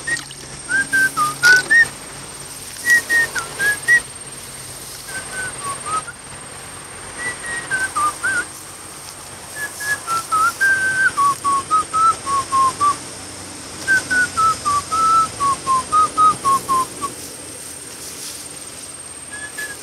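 A tune whistled in phrases of short notes that mostly step downward, with brief pauses between phrases.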